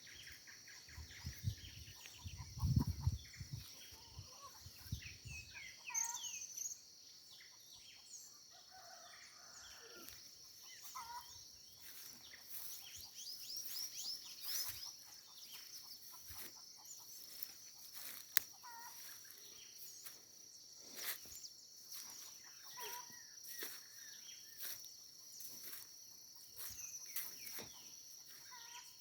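Birds calling and chirping outdoors, many short calls over a steady high-pitched drone. There is low rumbling during the first six seconds.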